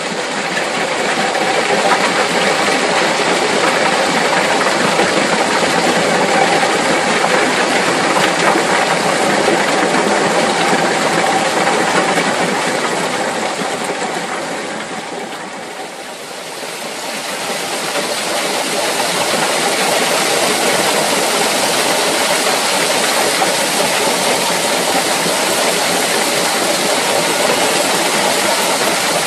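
Rock crushing plant machinery running with a steady, noisy sound; it fades down briefly around the middle, then comes back.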